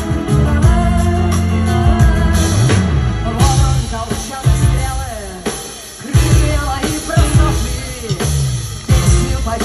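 A live rock band plays a song with acoustic guitar, bass and drums, and a woman sings lead at the microphone.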